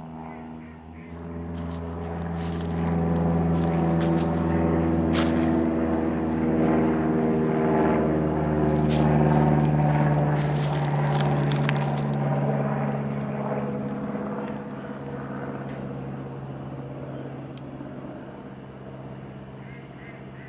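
A passing engine-driven vehicle droning. It swells over a few seconds, peaks around the middle, then slowly fades, its tones sliding down in pitch as it goes by. Scattered crackling clicks sound while it is loudest.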